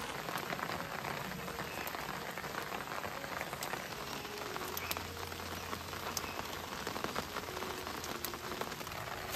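Steady light rain falling on an umbrella and garden leaves, with scattered single drop ticks.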